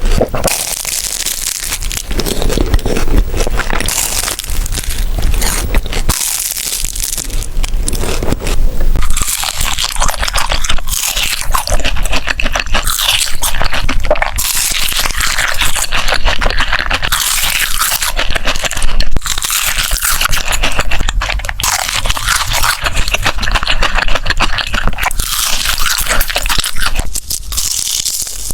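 Close-miked crunching and chewing of flaky egg tart pastry: a dense run of crisp crackles, broken by short pauses every few seconds.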